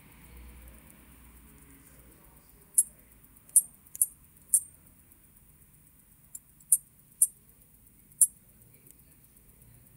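Small, sharp clicks from a wristwatch movement (Ulysse Nardin UN-118 with Oechslin perpetual calendar) as its crown is turned by hand. About eight clicks at uneven intervals, starting about three seconds in.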